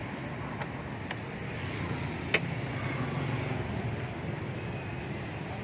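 Steady street traffic noise, with three short clicks, the loudest about two seconds in.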